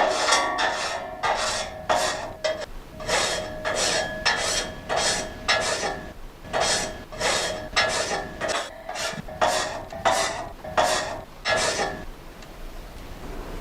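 A hand tool rasping in even back-and-forth strokes, about two a second, over a steady metallic ring; the strokes stop near the end.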